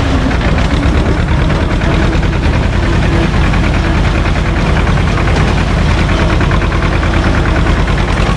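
Small SAME tractor's diesel engine running steadily with a rapid, even chugging as the tractor wades up a shallow river.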